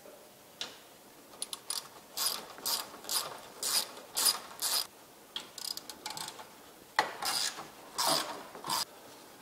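Hand ratchet with a socket clicking in repeated short bursts, about two strokes a second, as a bolt on a Jeep's rear roll-bar mount is turned. There is a pause in the middle, then three more strokes near the end.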